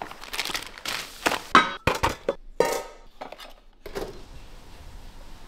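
Paper grocery bags rustling while items are taken out and set down on a kitchen counter, a quick run of knocks and clinks, a couple with a short ringing tone. One more knock about four seconds in.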